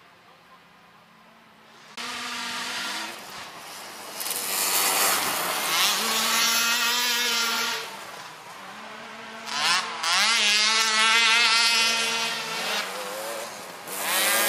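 Three-wheeler race engines revving as trikes pass, faint at first and then loud from about two seconds in. The pitch climbs and drops repeatedly with throttle and gear changes, in several loud passes.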